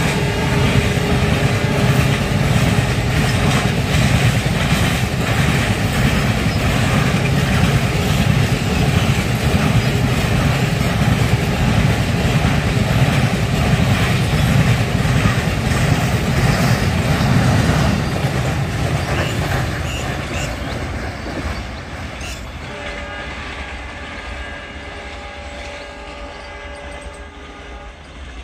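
Loaded BLC container flat wagons of a freight train rolling past, steel wheels clattering over the rail joints; the noise fades from about two-thirds of the way through as the rake moves away. A steady train horn sounds more faintly near the end.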